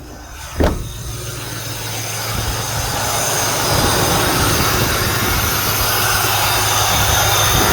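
A 2004 Ram 1500's 4.7-litre V8 idling after being started, with a new ignition coil on cylinder 6 that had misfired. There is a sharp thump about half a second in; the steady running then grows louder over the next few seconds and holds.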